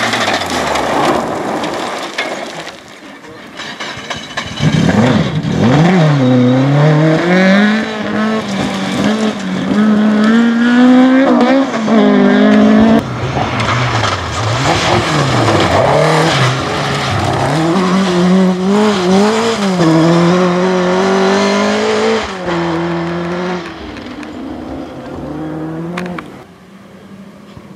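Rally car engine at full throttle on a stage, its pitch climbing and dropping again and again through gear changes and lifts for corners. It comes in loud about four seconds in and fades away near the end.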